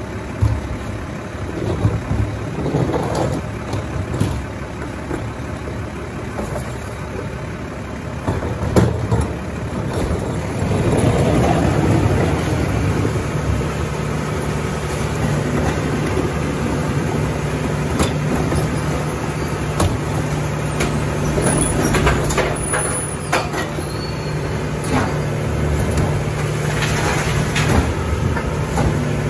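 Mack LR rear-loader garbage truck running; about ten seconds in its engine steps up to a higher, steady speed and holds there. Scattered knocks and clatter sound over it.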